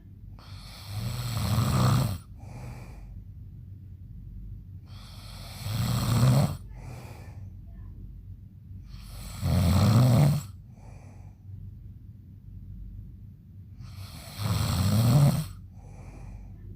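A man snoring loudly in his sleep: four loud snores about one every four to five seconds, each followed by a shorter, softer breath.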